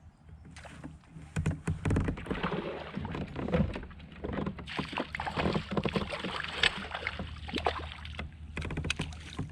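Splashing and repeated knocks and clatter at the side of a fishing kayak, typical of a bass thrashing at the surface as it is fought to the boat and landed.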